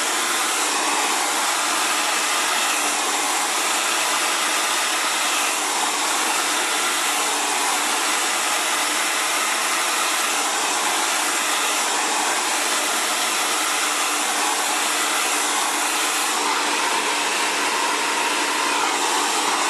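A 2200-watt Xtava Allure ionic ceramic hair dryer running steadily as it dries hair, an even rush of air with a faint hum.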